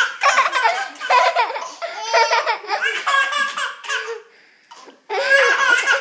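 A baby laughing in repeated high-pitched bursts. The laughing breaks off briefly about four seconds in and then starts again.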